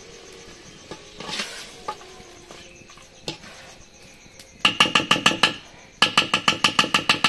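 Metal spoon clanging rapidly against a metal cooking pot: two quick runs of ringing strikes, about eight a second, the second starting a moment after the first ends, with a few single knocks before them.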